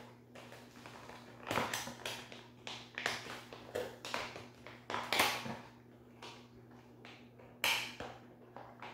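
Hands working at a cardboard box insert and the plastic ties that hold a plastic model horse in it: irregular rustles, scrapes and light taps, the loudest about five seconds in and near the end, over a faint steady hum.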